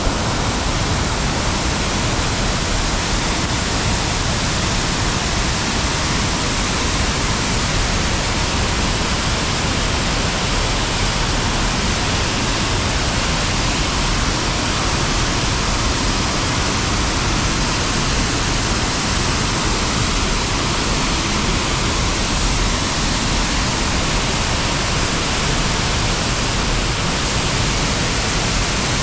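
Muddy, rain-swollen river rushing steadily below the rock cliffs: a loud, even wash of water noise with no breaks.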